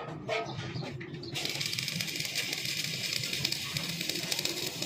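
Stick welding arc crackling and sizzling steadily as an electrode lays a weld on steel tube, after a brief crackle right at the start; the steady crackle sets in about a second and a half in.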